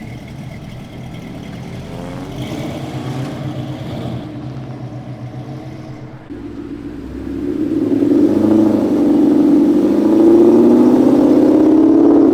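Car engines running as cars pull out, one accelerating hard past and growing much louder from about seven seconds in. The sound drops off sharply right at the end.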